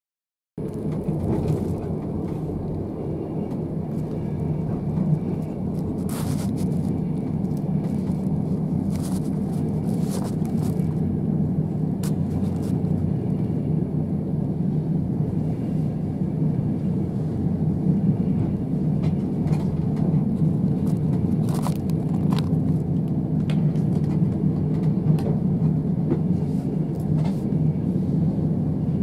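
Steady low rumble of a moving passenger train, heard from inside the carriage, with a few short sharp clicks and knocks scattered through it.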